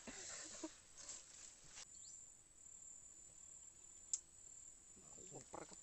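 Faint, steady high-pitched drone of insects such as crickets in the vegetation, with a single sharp click about four seconds in.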